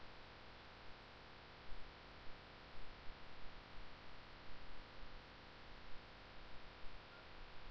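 Soft clicks of a computer mouse, a dozen or so irregular taps starting about two seconds in, over the steady faint hiss and hum of a desk microphone.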